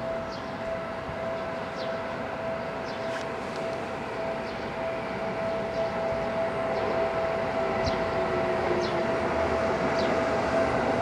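Seibu Railway electric commuter train running into the station, its rumble growing steadily louder as it nears the platform. A steady high tone sounds throughout.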